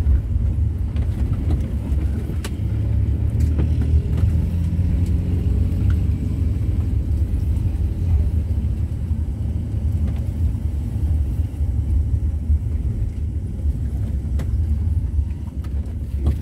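Steady low rumble of a Volkswagen Kombi camper van driving, engine and road noise together, with a few faint clicks.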